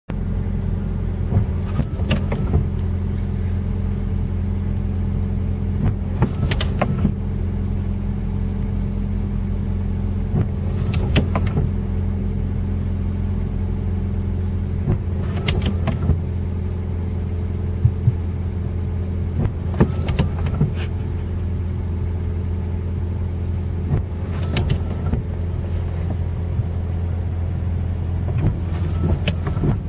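Car windshield wipers making a pass about every four and a half seconds, each sweep a brief cluster of rubbing and knocking strokes, over the steady low hum of the car's idling engine.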